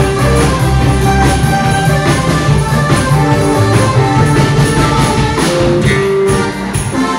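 Loud dance music with guitar and drums.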